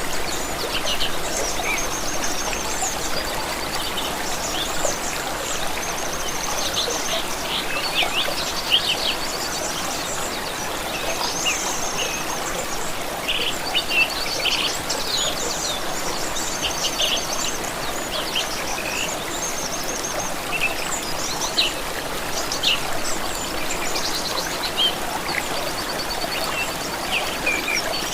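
Several songbirds chirping and trilling over the steady rush of a small stream. Quick trilled runs and short sharp chirps come and go throughout.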